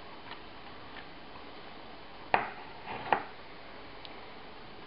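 Silicone pastry brush dabbing oil onto cauliflower slices on a baking sheet: a few faint taps, then two sharp knocks less than a second apart about midway.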